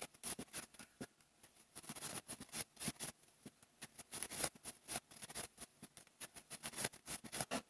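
Faint, irregular ticks and rustles of a crochet hook working yarn through stitches.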